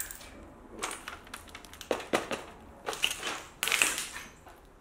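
Footsteps crunching over broken glass and debris, an irregular crunch about once a second.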